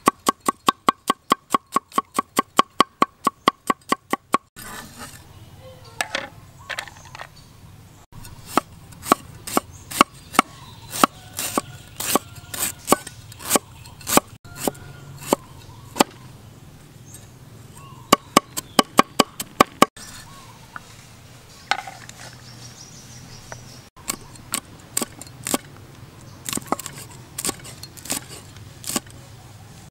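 Cleaver chopping on a wooden chopping board, cutting garlic, ginger and red chilies: a fast even run of about five strokes a second at first, then shorter, uneven runs of knocks.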